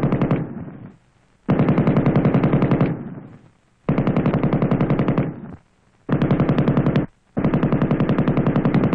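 M60 7.62 mm general-purpose machine gun firing short automatic bursts of about one to one and a half seconds, at about nine shots a second. One burst ends just after the start, then four more follow with brief pauses between, the last still firing at the end.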